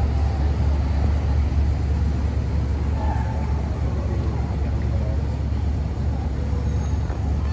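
Zagato Mostro's Maserati V8 idling with a steady deep low rumble, the car barely rolling.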